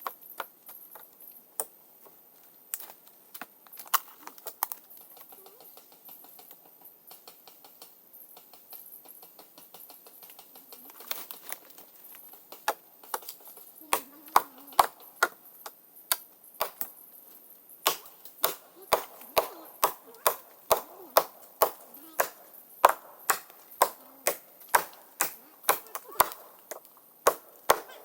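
Repeated sharp chopping strikes, like a blade hitting wood. They are scattered and light at first, then from about halfway through they become loud and steady, about two a second.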